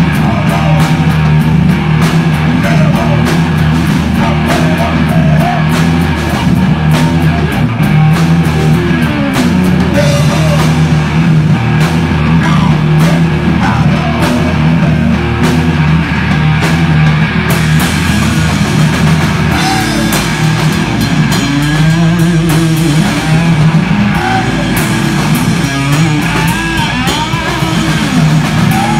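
Live hard rock band playing loudly: electric guitar through Marshall amps, bass guitar and a drum kit. The bass line drops to a lower note about two-thirds of the way through.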